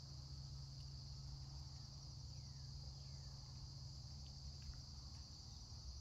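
Faint, steady chorus of crickets: a continuous high-pitched trill, with a low hum underneath and two faint falling chirps near the middle.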